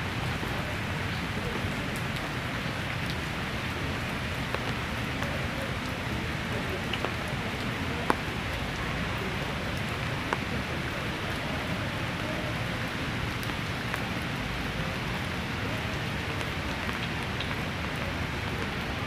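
Heavy rain pouring steadily onto paving and foliage, with a few sharp drips hitting nearby, the loudest about 8 seconds in.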